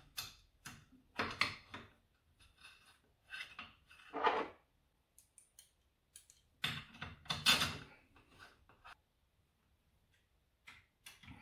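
Hand screwdriver and small screws clicking and scraping on a mini mill's metal belt cover as the cover is screwed back on. It comes as scattered short metallic clicks and rattles with quiet gaps between them, the strongest a little past four seconds in and again past seven seconds.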